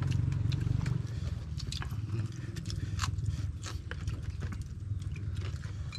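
People chewing and biting into food, with many short crunches and clicks from food, plates and utensils, over a steady low rumble.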